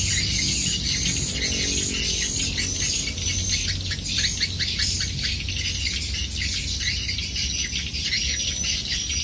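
Small birds chirping over and over, a string of short high chirps several to the second, with a steadier high note near the end, over a low steady rumble.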